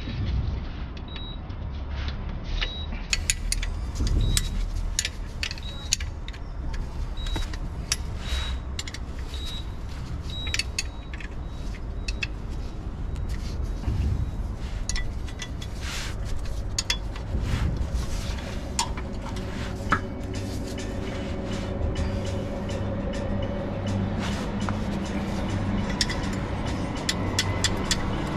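Scattered small metallic clicks and taps of hand work on fasteners under a car, over a steady low rumble. A steady low hum comes in about two-thirds of the way through.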